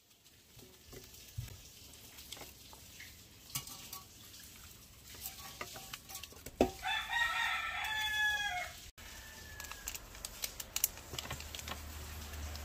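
A rooster crows once, a single call of about two seconds near the middle. Around it are light clicks and taps of fish being handled and seasoned in a stainless steel pan.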